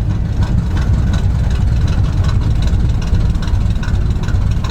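Squarebody GMC truck engine, fitted with an oversized camshaft, idling low with an uneven pulsing beat while stopped after driving.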